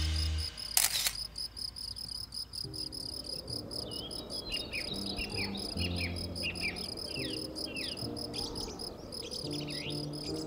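Crickets chirping in a steady, rapid pulse, with a songbird singing short falling whistled notes from about four seconds in. Soft sustained music notes run underneath, and a single sharp click sounds about a second in.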